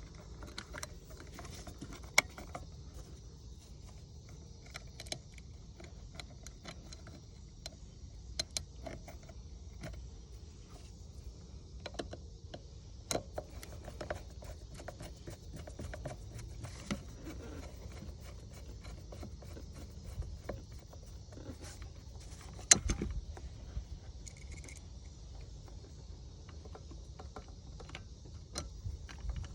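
Small irregular clicks and taps of a screwdriver tightening screws into a Mercury outboard remote control's housing and handling its small parts, with one louder knock about two-thirds of the way through, over a low steady hum.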